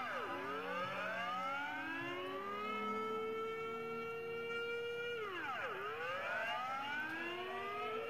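Outdoor civil-defence warning siren sounding a Dutch air-raid alarm tone in a test, heard from inside a house. Its pitch drops sharply near the start, rises slowly over about two seconds and holds, then drops and climbs again about five seconds in, with echoes trailing each glide.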